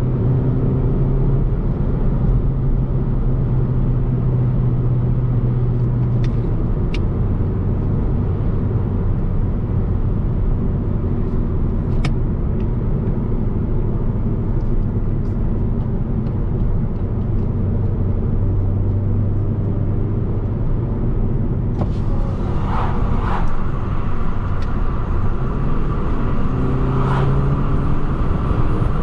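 Cabin sound of an Alfa Romeo Giulietta 1.75 TBi turbocharged four-cylinder at a steady expressway cruise, with tyre and road noise underneath. The engine note steps down in pitch about six seconds in, and a few light clicks come near the end.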